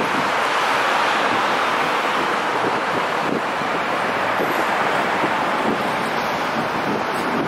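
Steady hiss of rain falling and city traffic on wet roads.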